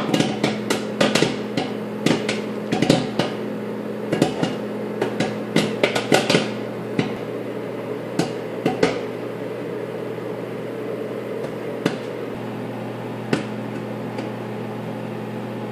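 Bag of microwave popcorn popping inside a running LG microwave oven over its steady low hum. The pops come thick and fast for the first several seconds, then thin out to a few scattered pops seconds apart, the sign the batch is nearly done.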